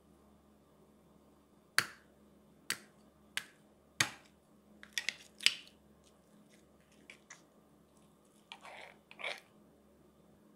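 Metal spoon cracking the hard caramelized sugar crust of a crème brûlée. First come four sharp cracks about a second apart, then a quicker cluster of crackles. Near the end there is a softer scrape as the spoon scoops into the custard beneath.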